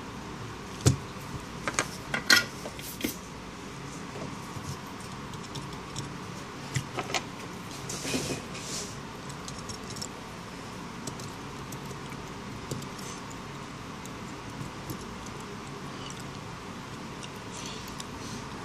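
Scattered light metallic clicks and taps of tweezers and a soldering iron tip against a phone's circuit board and metal shields, mostly in the first half, over steady background noise.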